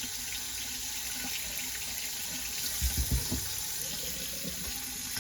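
Kohler Fairfax bathroom sink faucet running hot water into the basin with a steady hiss, its new mixer cartridge just fitted. A few low thumps come briefly about three seconds in.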